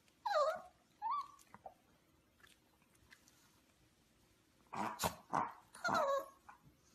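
A dog's short whining yelps: two pitched calls near the start, one falling and one rising, then a cluster of louder ones about five to six seconds in.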